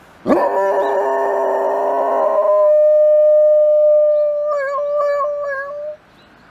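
A golden retriever howling: one long, steady, held note that wavers in pitch near the end before stopping. It starts just after a sudden chord of several steady tones that lasts about two seconds.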